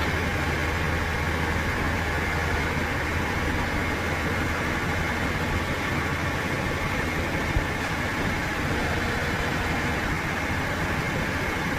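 Heavy machinery engine running steadily at a constant speed, a low hum with no revving, and a single short click about seven and a half seconds in.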